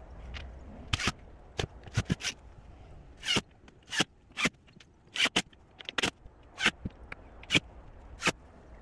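A string of short, sharp knocks and clacks on a plywood subfloor, irregular at first and then coming about once every half second to a second.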